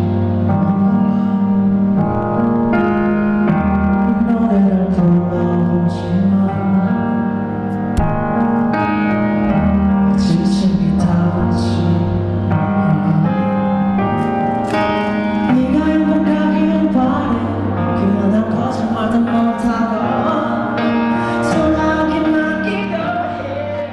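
Music: a song with piano and a singing voice, playing steadily.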